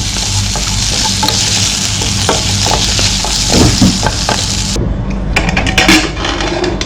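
Onions and tomatoes sizzling in hot oil in a pan while being stirred with a spoon, with light scraping and knocks against the pan. The sizzle cuts off suddenly about five seconds in, and a few clicks and knocks of utensils follow.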